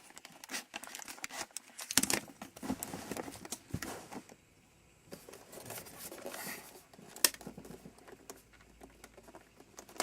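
Plastic handling noises from an Echo 1 P90 airsoft gun as its battery compartment is opened and the battery taken out. Scattered clicks and crinkling rustles, with one sharp click about seven seconds in.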